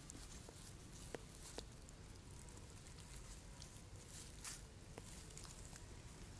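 Faint rustling in grass with a few soft scattered clicks, as a baby monkey grabs and pulls at grass blades.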